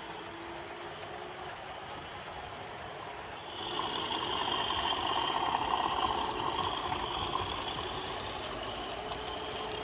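OO gauge model train, an Accurascale Class 37 hauling wagons, running on the layout's track. It gets louder about three and a half seconds in as it comes nearer.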